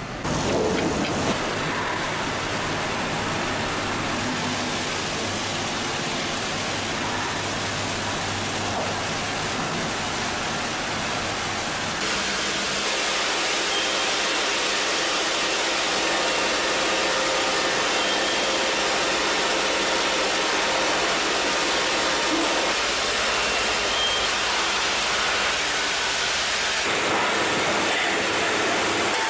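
Automatic sawmill log-processing machinery running as a log is conveyed and fed through: a steady, dense mechanical noise. About twelve seconds in it changes to a slightly louder, higher noise.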